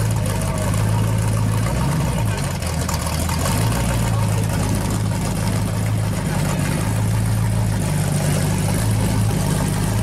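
Early second-generation Chevrolet Camaro's engine idling through its exhaust with a deep, steady note. About two seconds in the idle sags lower for a second or so, then recovers.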